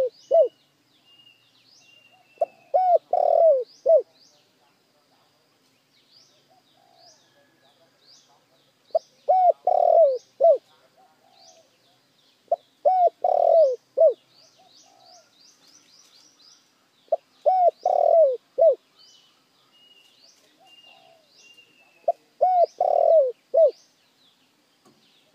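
Spotted dove cooing: five short phrases of several low, downward-curving coos, a few seconds apart. Small birds chirp high and quickly in the background throughout.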